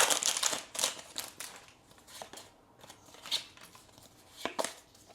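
Trading cards freshly pulled from a foil booster pack being handled and flicked through, a few short scattered snaps and rustles, with the foil's crinkle dying away at the start.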